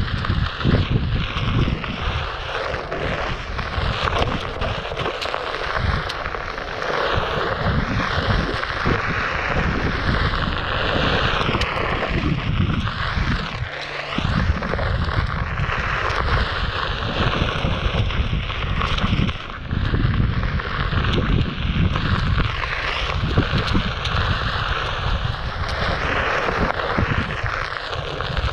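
Gusty wind buffeting the microphone of a rider on a moving Onewheel Pint electric board, over a steady rushing of the board's tyre rolling along a dirt trail.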